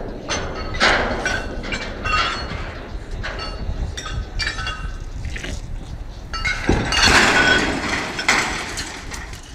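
Steel lattice transmission tower toppling: repeated metallic clanks and high screeching as the structure twists and gives way, then a loud crash about seven seconds in as it hits the ground.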